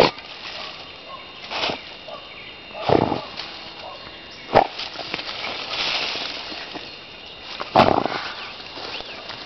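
A dog rummaging in leafy undergrowth, with about five short, sudden sounds from the dog spread over several seconds and twigs and leaves rustling between them.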